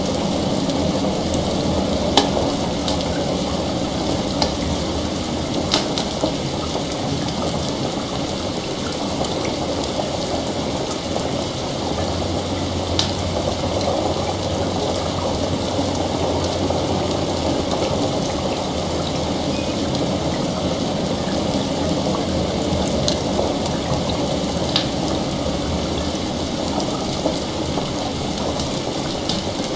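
Ambient mix of steady heavy rain and a crackling fire: a continuous hiss of water with scattered sharp crackles. A low rumble swells for several seconds about twelve seconds in.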